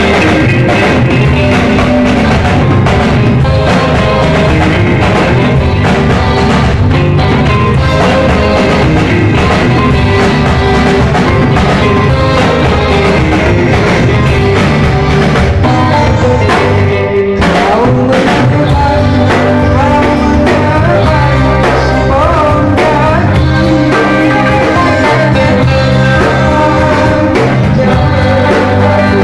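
Band music with a steady beat, and a man singing Malay pantun verses into a microphone over it. The music breaks off for a moment just past the middle.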